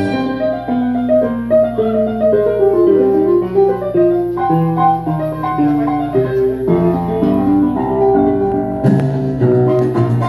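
Salsa recording in a piano solo: a run of melodic piano lines with the percussion mostly dropped out, and the drums and percussion coming back in near the end.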